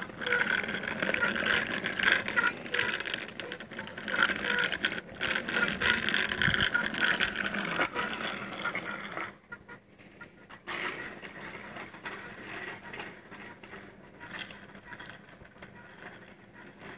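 Child's bicycle with training wheels rolling over asphalt, its small wheels rattling with a rapid clatter; loud for about the first nine seconds, then much fainter as the bike rides away.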